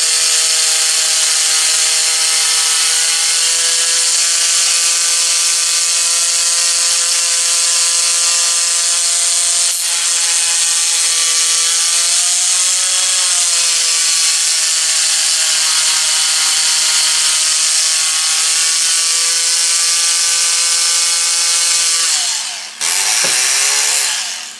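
Oscillating multi-tool (Ridgid JobMax) running with a steady high buzz, held against a tire's valve stem to vibrate ceramic balancing beads down through the stem into the tire. Its pitch sags briefly about halfway through; near the end it cuts out, runs again for about a second, then stops.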